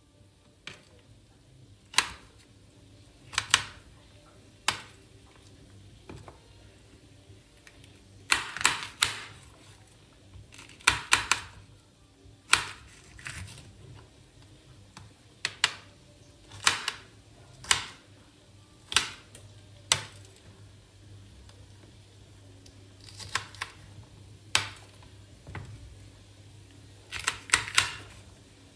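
Chef's knife slicing peppers into thin strips on a cutting board: sharp knocks of the blade meeting the board, some single and some in quick runs of several, with pauses between.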